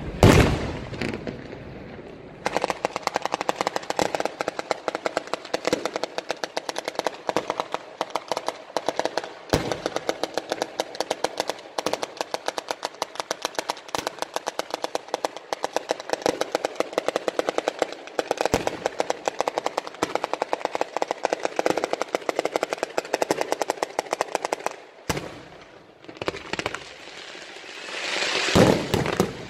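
A Sanseverese-style fireworks battery: one heavy bang, then a long, fast, even rattle of ground firecrackers going off in rapid succession like machine-gun fire. Near the end a single bang, then a louder rush of crackling as comets and shells are fired from the ground.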